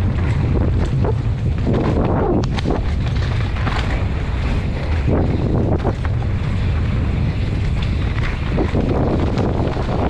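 Downhill mountain bike ridden at race speed, heard from a helmet-mounted camera: steady wind buffeting the microphone over tyres rumbling on dry dirt and rocks, with frequent sharp knocks and rattles from the bike over bumps.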